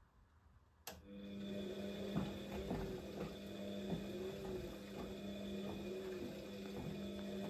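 Siemens Siwamat XS 1060 front-loading washing machine starting to tumble about a second in: a click, then the drum motor runs with a steady hum and a whine that rises and falls in a slow repeating cycle, with small knocks as the wet laundry turns.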